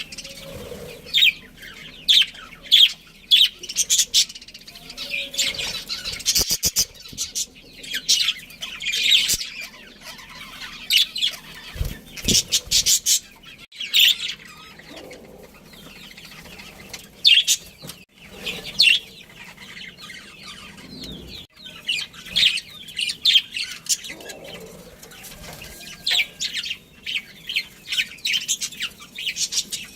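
A colony of budgerigars chirping: many short, high calls overlapping in busy clusters, with a few briefer lulls.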